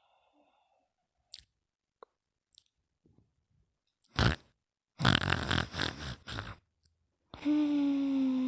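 Slow snoring from a sleeper: a few faint mouth clicks, then a long rattling snore breath about five seconds in, followed near the end by a steady hummed, slightly falling tone.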